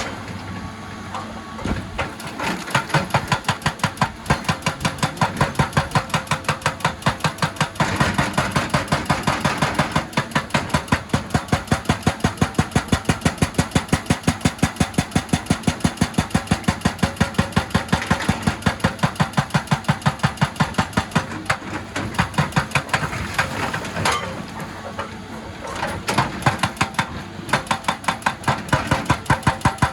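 Excavator-mounted hydraulic rock breaker hammering on stone in a steady run of sharp blows, about three or four a second, stopping briefly a few times as it is repositioned, over the excavator's diesel engine.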